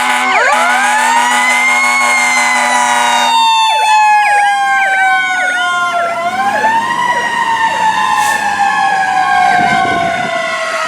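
Fire engine sirens sounding. One siren rises in pitch over the first couple of seconds, then falls slowly, while a second siren cycles through quick repeating yelps. A steady horn blast runs underneath until about three and a half seconds in.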